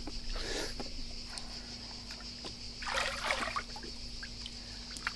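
Crickets chirping steadily, with water sloshing briefly twice, about half a second in and again around three seconds in.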